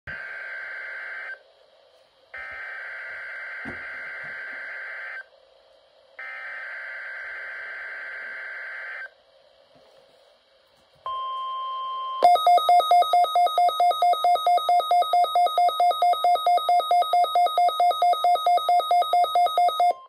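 NOAA weather alert radio receiving a Required Weekly Test: three screechy SAME digital header bursts, each a second or more long with gaps of about a second between them. A short steady warning tone follows, then loud rapid beeping at about six beeps a second.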